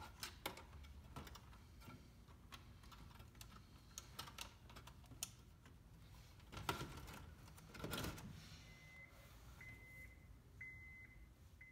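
Plastic and metal clicking and rattling as a car stereo head unit and its wiring harness connectors are handled, plugged together and pushed into a dash pocket, with two louder scuffs about seven and eight seconds in. Near the end a faint high electronic beep tone sounds in several short pieces.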